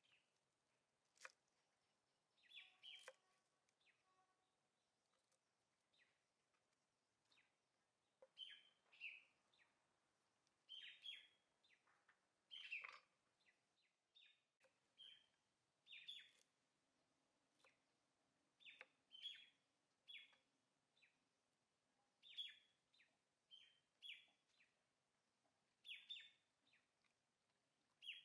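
Faint bird chirps outdoors: short calls repeated every second or two. A couple of sharp clicks come about a second in and again around three seconds.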